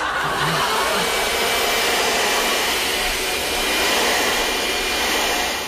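Upright vacuum cleaner running steadily, a loud motor-and-airflow rush with a thin high whine over it.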